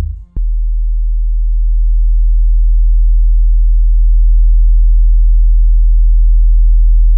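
DIY subwoofer with two Tang Band 740P 8-inch drivers and a Dayton Audio RSS390-PR 15-inch passive radiator playing a loud, steady, very deep sine tone. The tone cuts out briefly just after the start, then comes back and holds.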